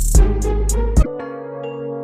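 Background music: a beat with strong bass hits for about a second, then it changes to sustained keyboard chords.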